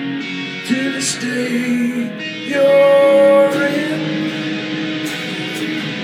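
Guitar music with plucked and strummed notes, and a louder held note in the middle.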